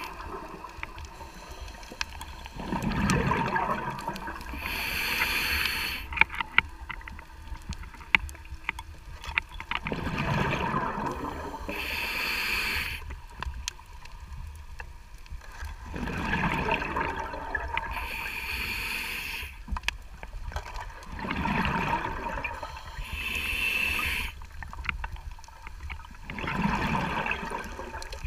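Scuba regulator breathing underwater: a hiss on each inhalation, then a gurgling rush of exhaust bubbles on each exhalation, about one breath every six seconds. A few sharp ticks come between about 6 and 9 seconds in.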